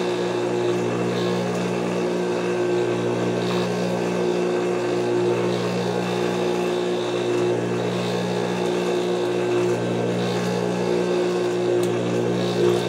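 Juki industrial sewing machine's motor humming steadily at an even pitch.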